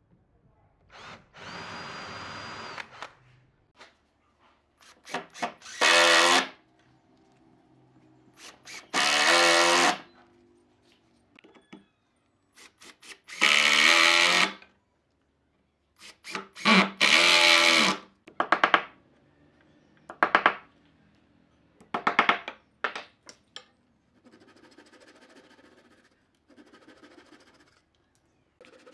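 A cordless drill boring a hole into a pine chair seat, then a cordless impact driver driving screws in about six short bursts of a second or so each. Near the end, a fine-toothed flush-cut saw rasps faintly as it trims wooden pegs flush with the seat.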